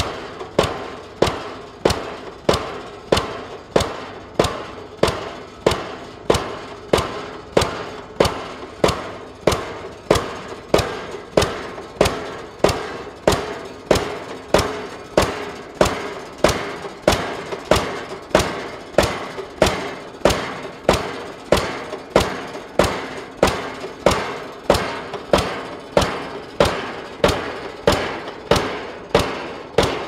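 Link-Belt M70 double-acting diesel pile hammer running, firing and striking in a steady rhythm of a little under two blows a second, each a sharp bang that dies away quickly.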